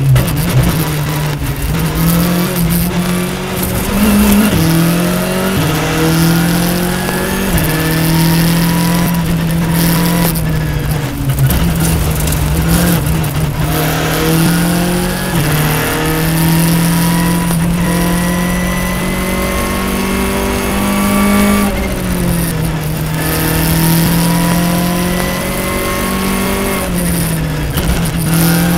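Onboard sound of a Škoda rally car at full stage pace, heard inside the cabin. The engine revs up through the gears again and again, its pitch rising and then dropping at each quick gear change, over loud tyre and road noise.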